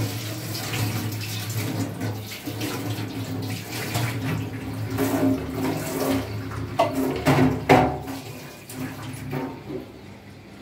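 Water running and splashing into a stainless-steel kitchen sink as rinse water is poured off a steel bowl of beans under the tap, with a steady low hum underneath. A few sharp metal clinks of the bowl against the sink come about seven seconds in, and the water dies away after that.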